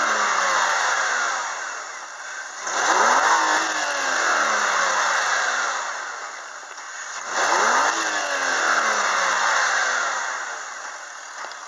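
BMW M54 3.0-litre straight-six petrol engine of an X5 E53 being revved in neutral: it is falling back from one blip at first, then is pushed up quickly twice more, about three seconds in and again past seven seconds, each time letting the revs slide slowly back down toward idle.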